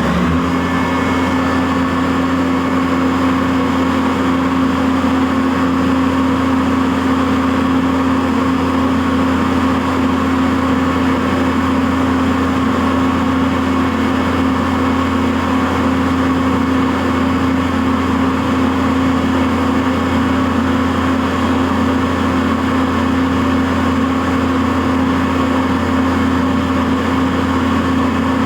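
CNC vertical milling machine running steadily while milling Delrin, with a steady spindle whine and hum at constant speed. The spindle has just spun up.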